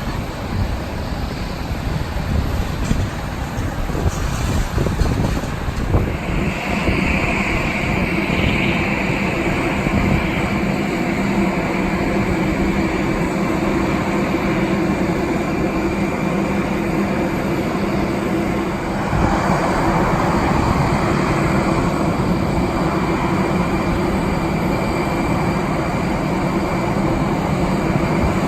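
Jet airliner engines running, with a steady high whine that sets in about six seconds in over a low steady drone, and a louder rush of engine noise joining about two-thirds of the way through. Wind buffets the microphone in the first few seconds.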